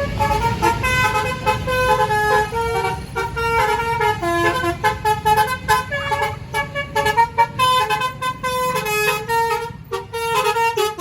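Basuri V3 telolet bus horn playing a fast melody of many short notes stepping up and down in quick succession, stopping abruptly at the end.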